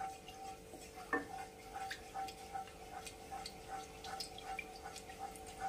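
Wooden spatula moving through heating oil in a kadai: faint irregular ticks and clicks, a few a second, with one sharper click about a second in, over a faint steady hum.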